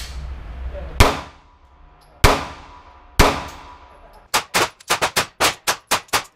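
Smith & Wesson M&P Shield 9mm pistol firing. Single shots about a second apart each ring on in the indoor range, then a quick string of about ten shots follows near the end.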